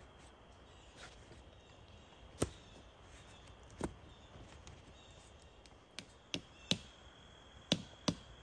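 A series of about seven sharp, irregularly spaced knocks: single ones about two and a half and four seconds in, then a quicker run of five in the last two and a half seconds. A faint steady high whine runs underneath.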